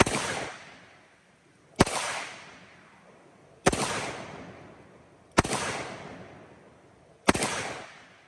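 Five .357 Magnum shots from a Smith & Wesson Model 27 revolver with an 8 3/8-inch barrel, fired double action at an even pace about two seconds apart. Each shot is followed by an echo that dies away over about a second.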